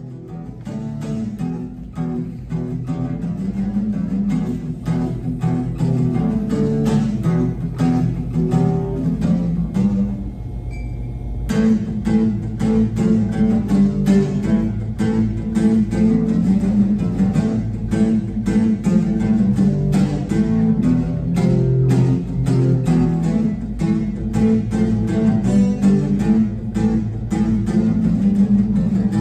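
Acoustic guitar strummed in steady chords. About ten seconds in it drops for a second or so to a softer held chord, then the strumming picks up again.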